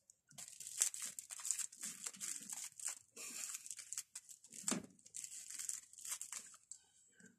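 Thin clear plastic wrapping crinkling in irregular rapid crackles as it is handled and pulled off a felting needle, dying away near the end.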